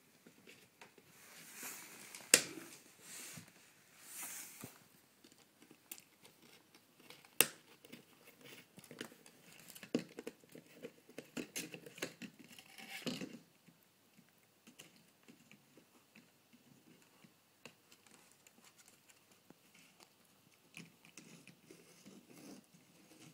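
Shetland sheepdog puppy playing with and chewing a toy on a wooden floor: faint scattered scratching, rustling and small clicks of teeth and claws, with two sharp knocks about two and a half and seven and a half seconds in.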